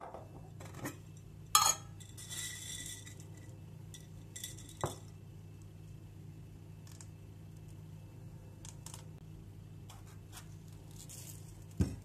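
Tableware and a glass jar being handled on a kitchen countertop. A loud clunk comes about one and a half seconds in, followed by a rustling rattle, then a sharp clink, scattered small clicks, and another knock near the end, all over a low steady hum.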